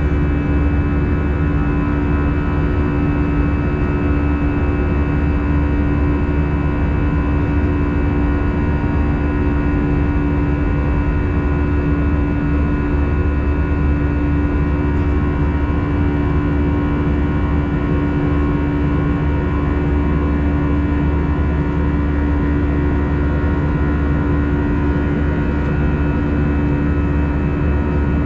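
Airbus A320 cabin noise in flight: the steady drone of the jet engines and airflow heard from inside the cabin, a low rumble with a strong steady hum and several higher steady tones, unchanging throughout.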